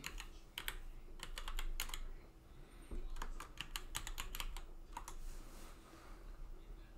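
Typing on a computer keyboard: two short runs of keystroke clicks with a pause of about a second between them.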